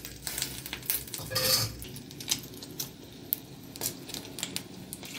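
A steel bowl and spoon clinking and scraping against an aluminium kadai as beaten egg is poured in and spread out, in irregular clicks with one longer scrape about a second and a half in. The egg sizzles faintly in the hot oil underneath.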